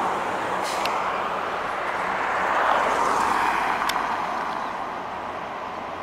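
Highway traffic noise: tyres and engines as a semi-trailer truck pulls away along the road. The noise swells about halfway through as traffic passes close, then fades, with a couple of short clicks.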